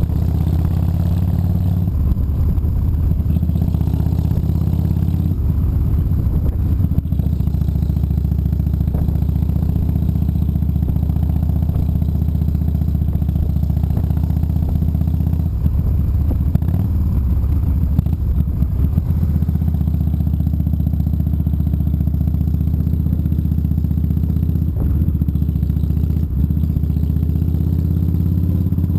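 Gilroy-built Indian motorcycle's V-twin engine running at a steady cruise, a low, even engine drone heard from on the bike.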